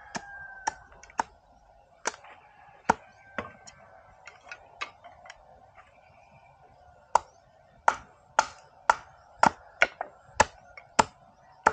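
Bolo knife chopping bamboo sticks against a log used as a chopping block: sharp, separate chopping knocks, scattered at first, then a steady run of about two a second in the second half.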